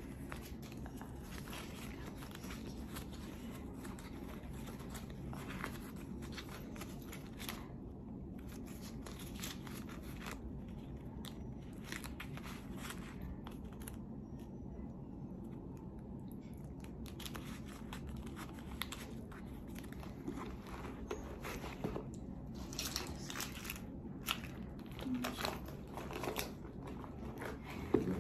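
Hands handling a leather card holder and cards: soft rustling with scattered light clicks and taps over a steady low hum, the clicks growing more frequent and a little louder near the end.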